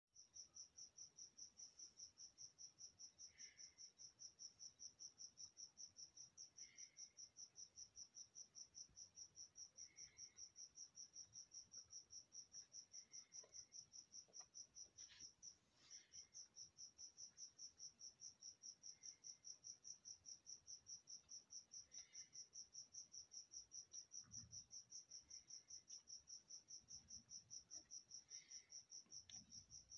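Cricket chirping: a steady high trill pulsing rapidly, breaking off briefly about halfway through. A few faint low knocks near the end.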